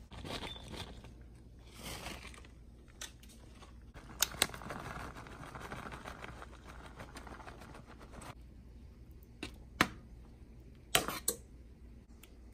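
Shredded cheese poured from a plastic bag into a skillet of cream sauce, the bag rustling. A few sharp clicks of a metal spoon against the pan as the cheese is stirred in.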